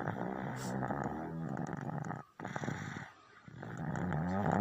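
A baby snoring: one snore lasting about two seconds, then a second snore beginning about three and a half seconds in.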